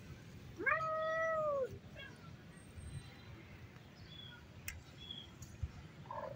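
A cat meowing once: a single call of about a second that rises, holds level, then drops away.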